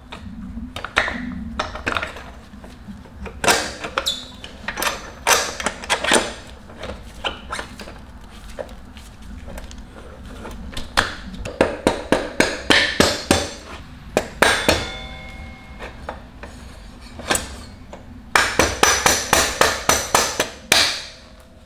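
Mallet tapping the rear axle of a Honda Monkey through the wheel hub, spacer and swingarm. Scattered knocks and light metal clinks give way near the end to a quick run of taps, about three a second.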